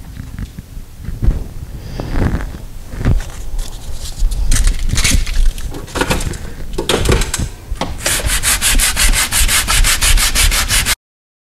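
Hand sanding of dried Bondo body filler on a steel door with coarse-grit sandpaper. Irregular rubbing strokes give way, about eight seconds in, to quick, even back-and-forth strokes, about six or seven a second, which stop abruptly near the end.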